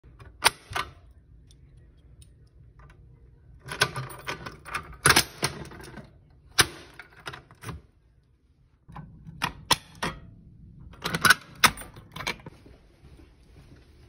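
Keys jangling and sharp clicks and rattles as a Notifier fire alarm pull station is handled with its key, in several short clusters with pauses between.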